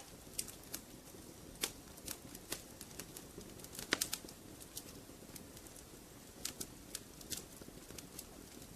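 Wood fire crackling: irregular sharp pops and snaps over a soft steady low sound of the burning fire, the loudest pop about four seconds in.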